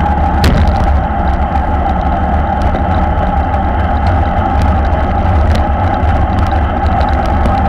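Wind rushing and buffeting over a bike-mounted action camera's microphone while riding in a road-race bunch at about 47 km/h, with steady rumbling road and tyre noise. A few sharp clicks stand out, the loudest about half a second in.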